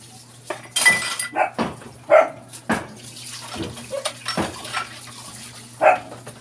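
Plastic dishes clattering and water splashing as they are washed by hand at a sink. A dog barks a few times over it, once loudly about two seconds in and again near the end.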